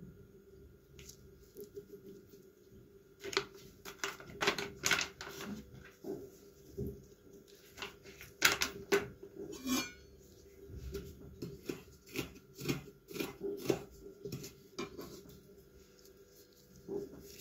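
Knife tapping, clinking and scraping against a ceramic plate piled with raw venison chunks, in irregular taps starting about three seconds in and thinning out near the end.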